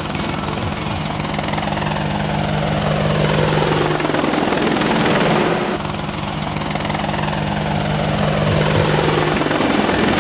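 Quadcopter drone's propellers buzzing steadily in flight, with a sweeping, whooshing quality that swells twice as it flies low over the concrete.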